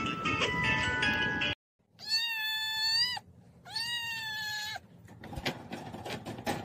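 A short stretch of music cuts off, and after a brief gap a kitten gives two long, even meows of about a second each. Faint clicking follows near the end.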